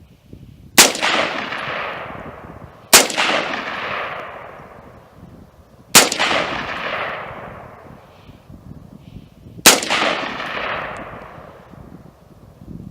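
Four single shots from an ATI AR-15 carbine firing green-tip military rounds, spaced two to four seconds apart. Each crack is followed by a long echo that fades over about two seconds.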